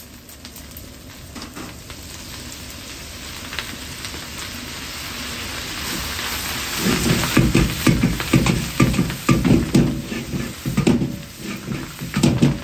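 Chopped green onions sizzling in hot oil in a carbon-steel wok, the sizzle building steadily. From about seven seconds in, a metal ladle stirs and scrapes while the wok is tossed, in a quick repeated rhythm of strokes.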